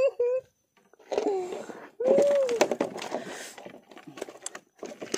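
A man's wordless, breathy voice sounds: the tail of a quick laugh, then two drawn-out exclamations, one falling and one rising and falling. Light clicks and knocks follow.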